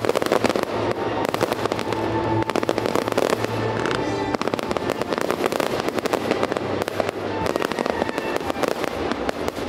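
Fireworks display: a dense, rapid run of bangs and crackling from aerial shells and crackle effects, with show music playing underneath.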